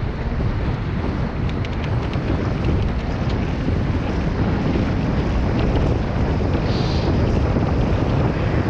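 Wind buffeting the microphone of a helmet-mounted GoPro Hero 5 on a bicycle descending a steep hill at speed: a loud, steady rush of wind noise.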